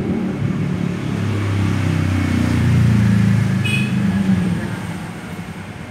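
A motor vehicle's engine passing by, its low hum growing louder to a peak about three seconds in and then fading away.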